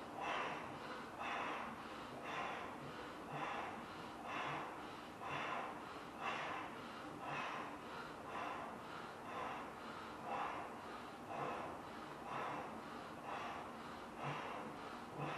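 A person blowing up a large balloon by mouth, breathing in sharply and blowing into it about once a second in a steady rhythm. The balloon has not yet popped.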